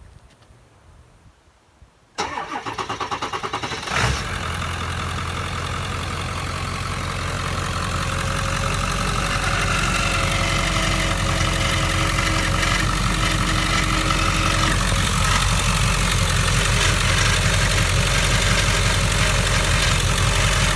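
Ford 7.3 Powerstroke turbodiesel V8 cranking on the starter for about two seconds, catching about four seconds in and settling into a steady idle. The owner hears a grinding noise from it, which he thinks comes from the belts.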